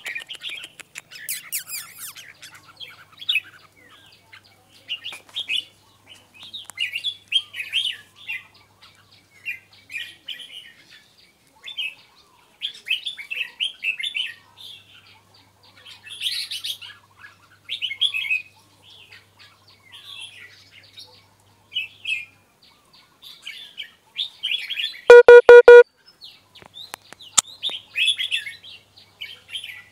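Red-whiskered bulbuls chirping and singing in short, quick phrases, over and over. About 25 seconds in, a brief, much louder buzzy tone cuts across them for under a second.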